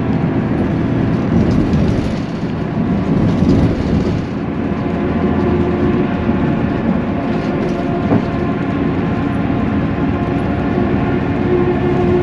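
An old diesel bus with a manual gearbox driving along, heard from inside the cabin: a steady engine drone with road noise.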